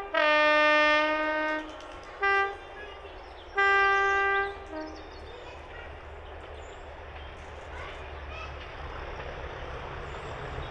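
Diesel freight locomotive's two-tone horn sounding: a brief high note, a long low note, a short high toot, then a longer high blast that drops to the low note as it ends. A low engine rumble then slowly grows louder as the train approaches.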